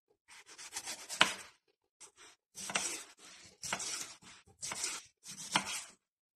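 Kitchen knife slicing red pepper, cucumber and tomato on a wooden cutting board: several short bursts of cutting, each with a sharp knock of the blade on the board, with brief pauses between.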